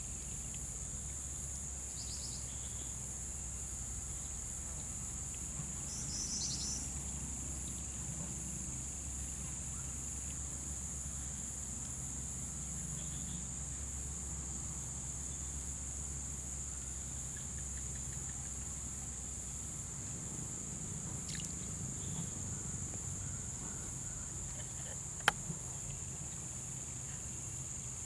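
Insects droning steadily in a high, even buzz, with a couple of brief chirps in the first few seconds and a single sharp click near the end.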